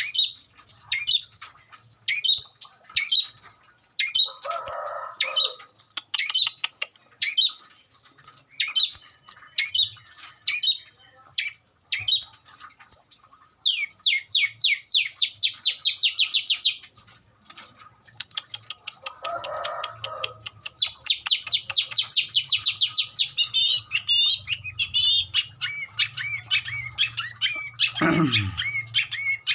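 A long-tailed shrike (cendet) singing: a string of sharp, high chirps about every half second, then fast trilled runs of mimicked notes, with two short harsh rasps along the way. A steep downward-sliding note comes near the end.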